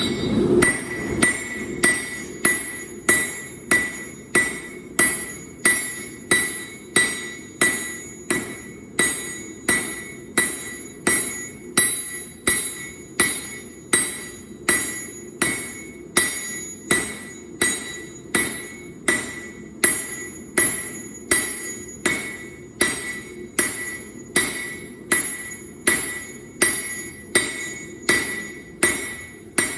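Blacksmith's hammer striking steel on an anvil at a steady pace of about two blows a second, each blow ringing: hand forging of the Damascus billet.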